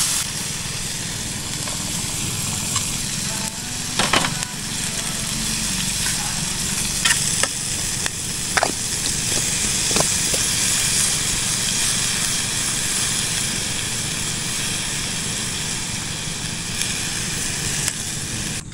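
A steady hiss with a few sharp taps, about four, seven, eight and a half and ten seconds in; it cuts off suddenly at the end.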